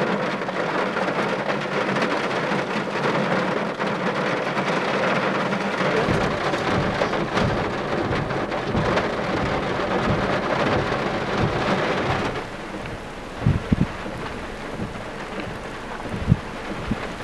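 Heavy rain beating on a car's windshield and roof, heard from inside the car. About twelve seconds in it drops to a quieter, steady rain hiss, with a few low thumps of wind on the microphone.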